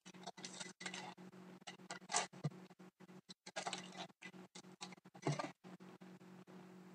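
Trading-card packs and cards being handled: irregular rustling and crinkling of wrappers and cards, louder about two seconds in and again about five seconds in, over a steady low hum.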